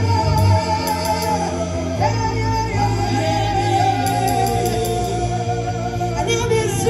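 Ghanaian gospel song: a sung vocal line holding long notes over band backing with a steady bass, one note held for several seconds from about two seconds in.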